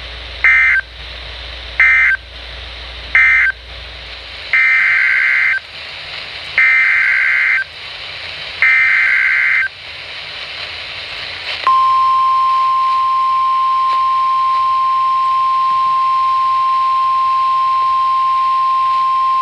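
NOAA Weather Radio Emergency Alert System signal. First come three short screeching bursts of digital SAME data, the end-of-message code closing the previous alert. Then come three longer bursts, about a second each, the header of the next warning. From about twelve seconds in, the steady single-pitch 1050 Hz weather radio warning alarm tone sounds.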